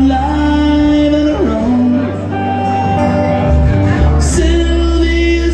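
Live band playing a slow pop ballad: a steady bass and guitar under a voice singing long held notes.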